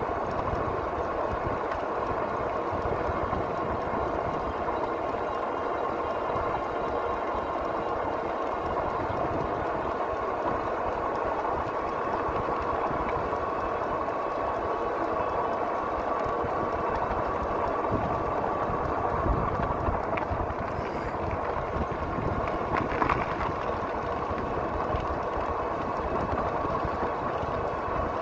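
E-bike riding on coarse asphalt under pedal assist: a steady hum of tyre and drivetrain noise with a faint constant whine, and a couple of brief rattling clicks near the end.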